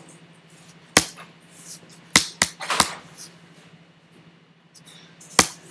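Computer keyboard keystrokes while code is edited: a few sharp, separate key presses, one about a second in, three close together around two to three seconds, and one near the end.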